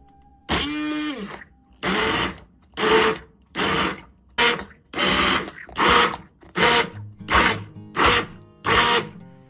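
Immersion (stick) blender puréeing pumpkin and boiled potato in a cast-iron pot, run in bursts: one longer run about half a second in, its pitch rising then falling, then about ten short pulses, roughly three every two seconds.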